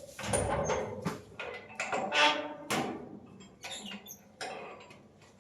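House gate being worked: a run of scrapes, knocks and rattles with short high squeaks from the hinges, the loudest scrape about two seconds in.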